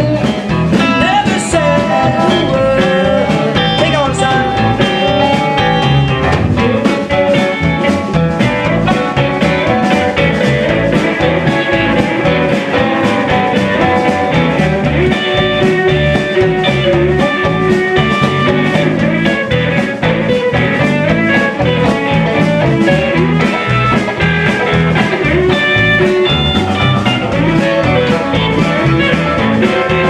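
Live rock and roll band playing at full volume: electric guitars over electric bass and a drum kit.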